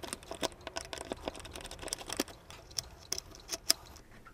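Irregular small clicks and taps of a flathead screwdriver and hands handling a Mauser M48 rifle's wooden stock and metal fittings, with a few sharper clicks near the end.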